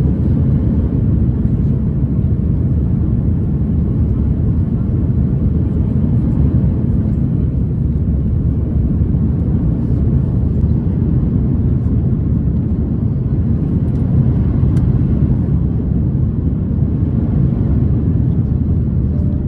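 Steady low rumble of cabin noise inside an Airbus A330-900neo climbing after takeoff, the Rolls-Royce Trent 7000 engines and rushing airflow heard through the fuselage from a window seat over the wing.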